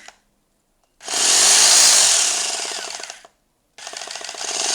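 Hangbo rotary hammer with a flat chisel fitted, run in hammer-only (chiselling) mode: two bursts of rapid hammering, each about two seconds, with a short pause between.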